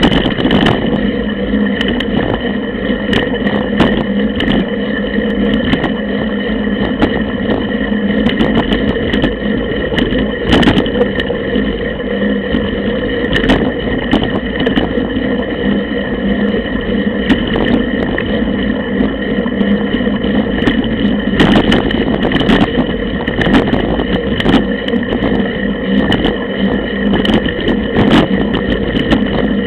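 Mountain bike riding fast over a dirt forest trail, heard close to a bike-mounted camera: a continuous rattle and rumble of tyres and frame. Sharp knocks come over bumps every second or two, and a steady hum sits underneath.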